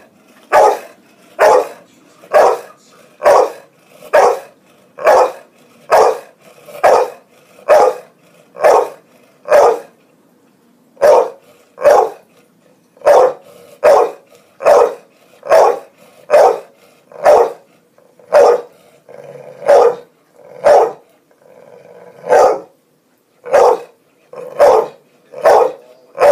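A dog barking over and over in a steady rhythm of about one bark a second, with a couple of short pauses.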